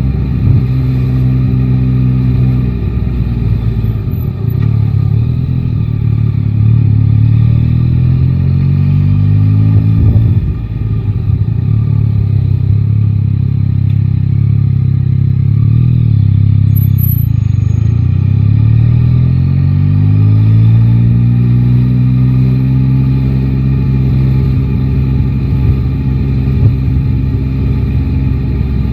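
Yamaha Tracer 9 GT's inline three-cylinder engine, heard from the rider's seat: the engine note climbs as the bike accelerates, breaks briefly about ten seconds in, falls away as it slows, then climbs again and holds steady at a cruise.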